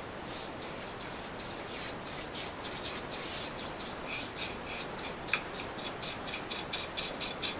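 Paintbrush scrubbing boiled linseed oil into a custom wooden air-rifle stock, the bristles scratching on the wood in short strokes that speed up to about three or four a second in the second half. A sharp tap comes about five seconds in.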